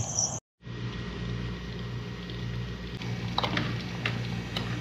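A steady low electrical-sounding hum with a faint hiss, broken by a few short clicks and knocks, after an abrupt cut to silence near the start.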